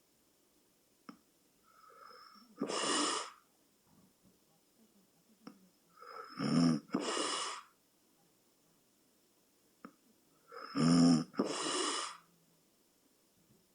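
A sleeping person snoring: three loud snores about four seconds apart, the later two each in two parts, with near quiet between them.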